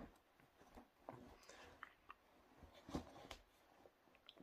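Near silence: room tone with a few faint clicks and rustles from a person moving close to the microphone, the loudest about three seconds in.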